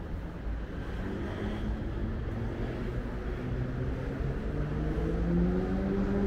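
City street traffic: a car's low engine rumble as it drives off through the intersection, with a steady humming tone that grows louder over the last couple of seconds.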